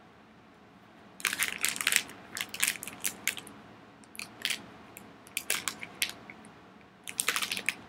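A plastic candy bag crinkling and crackling as it is handled, in short irregular clusters of sharp clicks separated by quiet pauses.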